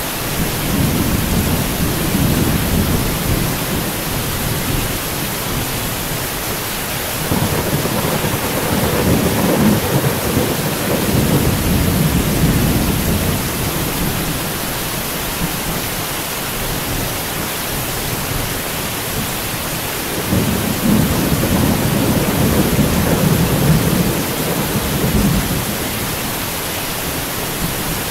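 Thunderstorm: steady rain hissing, with rolling thunder. Three long, low rumbles come at the start, about seven seconds in and about twenty seconds in, each swelling and fading over several seconds.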